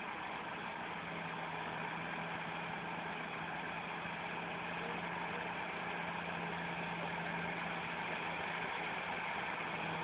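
Komatsu crawler bulldozer's diesel engine running steadily with a steady low hum while the machine pushes soil, growing slightly louder toward the end.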